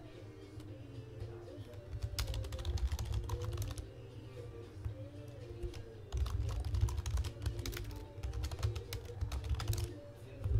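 Typing on a computer keyboard in two bursts, the first about two seconds long and the second about three and a half, over soft background music.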